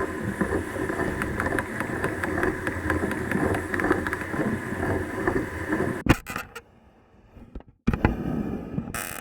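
Uher 4000 Report-S tape recorder mechanism heard through a contact microphone: the motor and transport run with a dense rattle of small clicks. About six seconds in it stops abruptly with a click. Near the end come two clunky button presses.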